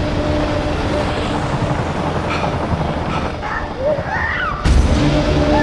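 Helicopter rumbling overhead: a dense low roar with a steady hum. Some short sliding higher tones come just before the middle of it, and about four and a half seconds in the rumble cuts abruptly to a louder, deeper level.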